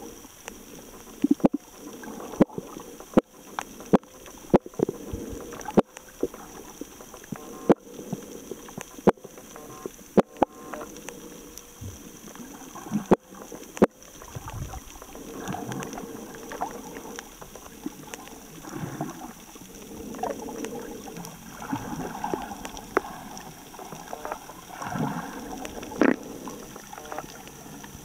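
Underwater sound picked up by a camera held below the surface: muffled sloshing and gurgling of water, with sharp clicks about once a second through the first half and gurgling surges every few seconds in the second half.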